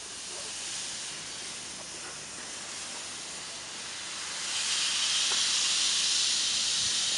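Small Kerr Stuart Wren-class narrow-gauge steam locomotive venting steam with a steady hiss, which grows louder about four and a half seconds in.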